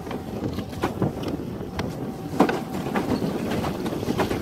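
Plastic pedal boat under way: a steady churning rumble with irregular clicks and knocks from the pedal-driven paddle wheel.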